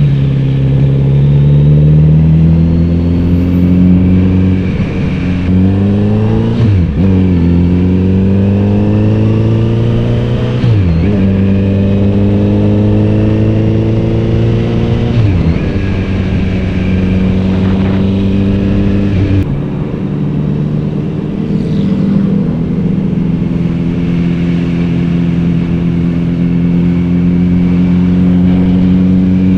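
Kawasaki Z900RS inline-four engine and exhaust pulling under throttle, its pitch climbing. It is cut by three quick gear changes about 7, 11 and 15 seconds in, then it settles to a nearly steady cruise with a brief easing off about 20 seconds in.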